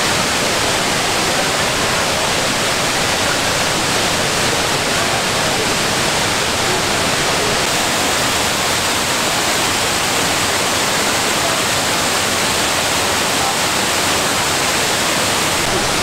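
Water pouring over the tiered cascades of the Kuang Si waterfalls: a loud, steady rush.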